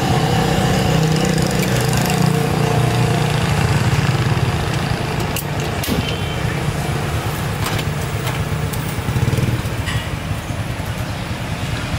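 A steady, loud low engine-like hum, with a few sharp clicks about halfway through and again near the end.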